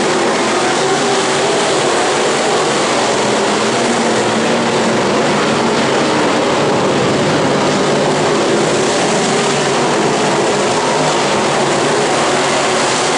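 Several dirt late model race cars running at speed on a dirt oval. Their V8 engines make a loud, continuous din, and the pitches waver up and down as the cars go around.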